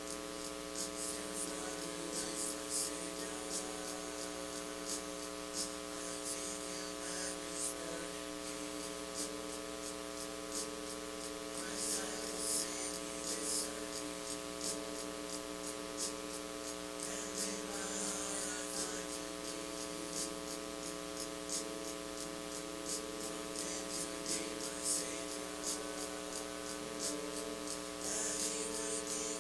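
Steady electrical mains hum and buzz, with many unchanging tones stacked over one another and a crackle of static on top.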